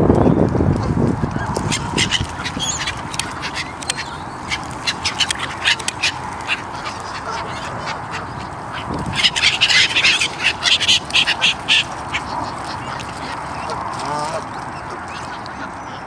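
A mixed flock of Canada geese and gulls calling on the water, with honks and many short sharp calls. A busy burst of calls comes about nine to twelve seconds in.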